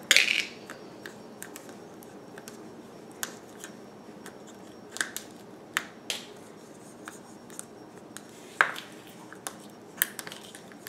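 Fingers poking and pressing homemade slime in clear plastic containers, giving scattered short sharp clicks and small pops, a louder one near the start and another about two-thirds of the way through.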